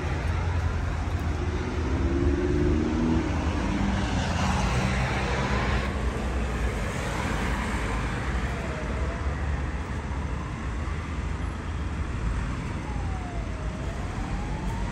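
Steady rumble of road traffic, with a siren wailing underneath, its pitch sliding slowly down and back up in cycles of about five seconds.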